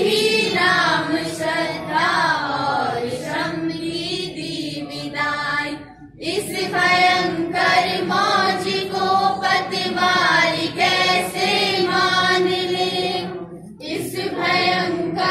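A large group of school students singing a morning assembly prayer together as a choir, with short breaks between the sung lines, about six seconds in and again near the end.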